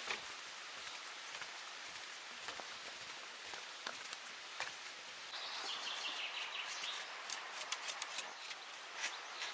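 Faint outdoor ambience: a steady hiss with scattered light clicks, and a short run of high chirps a little past the middle.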